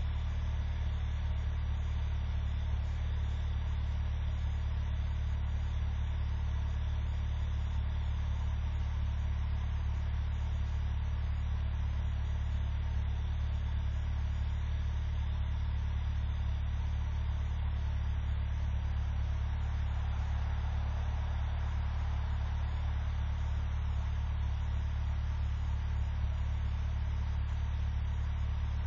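Engine idling steadily in the cold: an even, low drone that does not change.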